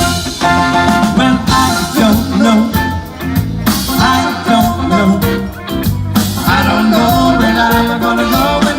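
Live band playing an upbeat, ska-like passage with drums and pitched instruments, with no lyrics sung.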